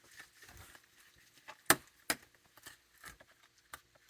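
Scattered light clicks and knocks from raccoons and skunks rummaging in food trays and dishes, with two sharper knocks a little before and after the middle.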